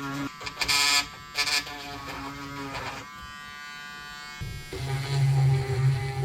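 A few short hissing bursts in the first second or so. About three-quarters of the way in, a small electric motor, typical of a hand power tool used in fibreglass bodywork, starts and runs with a steady buzz.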